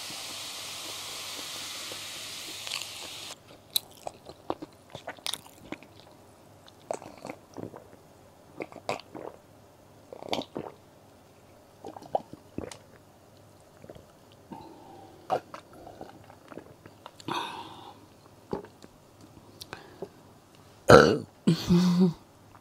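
Canned soda poured into a glass mug with lemon slices, fizzing with a steady hiss that stops suddenly after about three seconds. Then come scattered gulps and mouth sounds of drinking, and a loud burp near the end.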